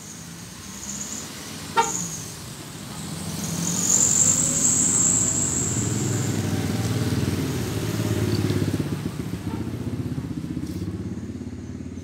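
Motor vehicles passing close by on a street: engine noise builds to its loudest about four seconds in, then fades slowly, with a short sharp toot about two seconds in.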